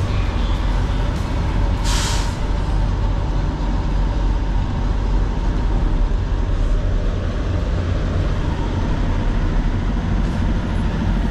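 Semi-truck diesel engine running steadily with a low rumble inside the cab. A short hiss of air from the truck's air system comes about two seconds in.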